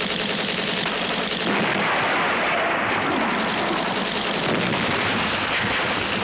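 Film sound effects of a belt-fed machine gun firing continuously, mixed with explosions, making a dense, unbroken din with no pauses.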